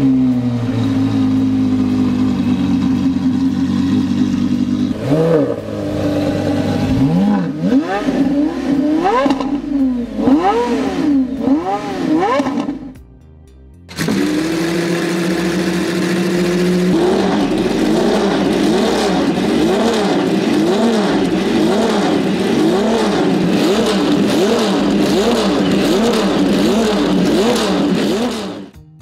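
Porsche Carrera GT V10 engine idling, then revved in several short blips before it dies away. A Porsche 917 flat-twelve then fires up suddenly, idles briefly and is revved over and over in quick, regular blips.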